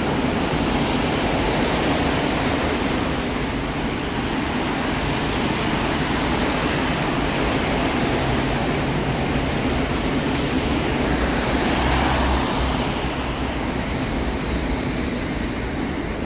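Steady wash of pouring rain under a road bridge, with cars hissing past on the wet road; one passes loudest about twelve seconds in.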